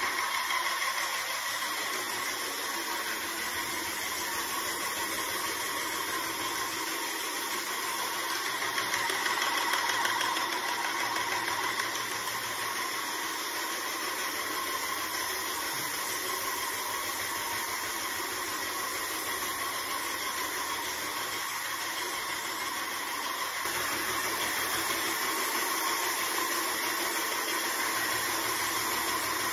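Airless paint sprayer running steadily: the pump motor's even whine with the hiss of paint spraying from the gun onto a ceiling.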